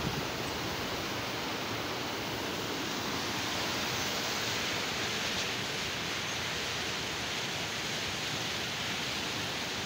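Steady rush of a small mountain stream tumbling over rocks.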